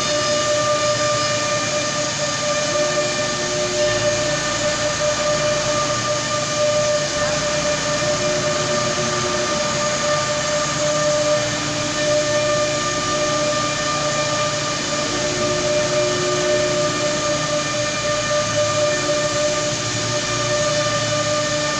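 4-axis CNC router running with a steady whine and a rushing noise. A lower tone cuts in and out every few seconds.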